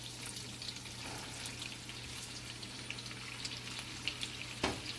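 Lamb and garlic frying in oil in a nonstick pot as cut okra is tipped in: a steady sizzle with fine crackles. A single knock comes near the end.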